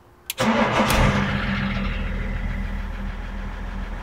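BMW X5 E53 3.0d's straight-six turbodiesel starting from the key: a click, a brief crank, then the engine catches about a second in. It is loudest as it fires, then settles into a steady idle.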